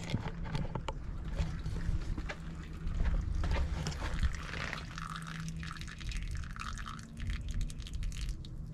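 Engine oil spraying and splattering from a loose oil fitting, with scattered ticks and drips over a steady low hum.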